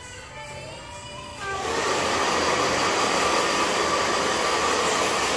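Handheld hair dryer switched on about a second and a half in, then blowing steadily and loudly.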